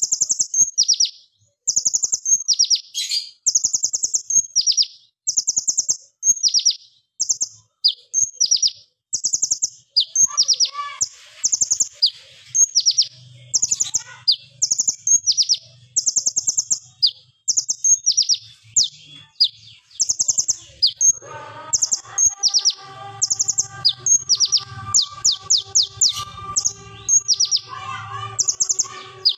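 Male Van Hasselt's (purple-throated) sunbird singing: sharp, shrill, high-pitched bursts of rapid-fire notes and quick falling trills, one burst about every second, the fast 'shot'-like delivery hobbyists prize.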